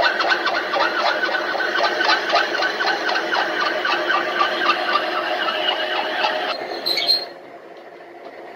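Coordinate boring machine drilling out the stud holes of a ZIL truck's brake drum and hub: a steady rapid chatter of the bit cutting metal, with held tones of the spindle over it. It cuts off abruptly about seven seconds in.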